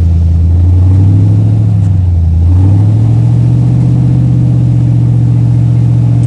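Off-road rig's engine running hard under load on a rock climb, its revs stepping up about two and a half seconds in and holding steady.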